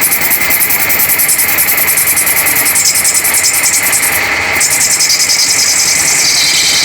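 Machine tool running and cutting metal: a loud, steady mechanical noise with a fast, even pulsing and a strong high hiss that shifts lower in pitch about two-thirds of the way through.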